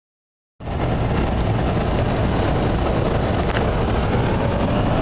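Steady low rumble of a car heard from inside its cabin, engine and road noise, starting about half a second in.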